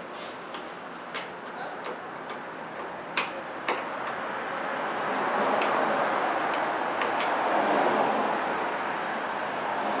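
Small ratchet clicking irregularly as it tightens a battery terminal clamp onto its post, most of the clicks in the first four seconds. A louder steady rushing noise swells up about halfway through and eases off near the end.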